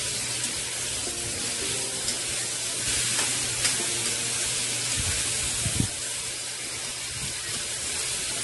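Beef sizzling as it is stir-fried in a wok over a gas flame: a steady frying hiss, with a few clicks and scrapes of the metal spatula against the pan.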